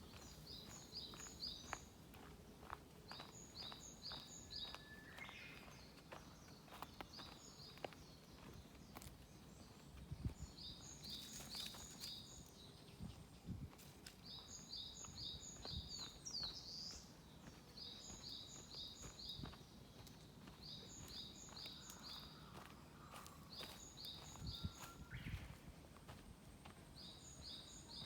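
A small songbird singing the same short phrase of four or five quick, high notes over and over, about every two to three seconds, with soft footsteps on a forest path underneath.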